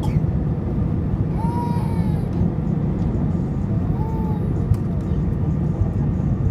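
Steady low rumble of an airliner heard from inside the passenger cabin. Two short high whines rise and fall over it, one about a second and a half in and another about four seconds in.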